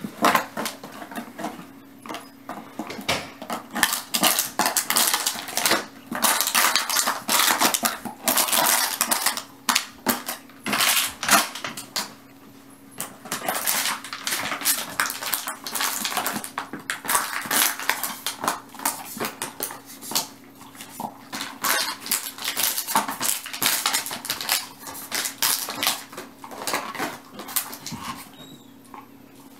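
An empty plastic water bottle crackling and crunching as a German Shepherd puppy chews and paws at it, in an irregular run of sharp crinkles.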